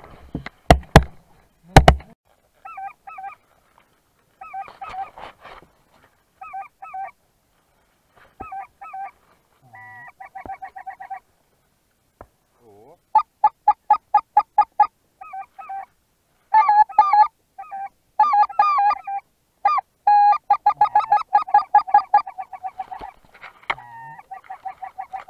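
A few loud sharp cracks in the first two seconds, then geese honking: short honks in quick runs, sparse at first and growing thicker and louder from about halfway on.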